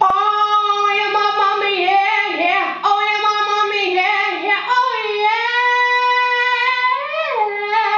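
A woman singing solo a cappella into an amplified microphone, holding long notes that slide up and down between pitches. A faint steady low hum runs underneath.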